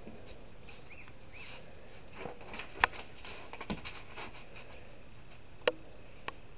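A sheet of paper being folded and creased by hand on a wooden tabletop: soft rustling and scraping, with a few sharp taps, the loudest about three seconds in and another near the end.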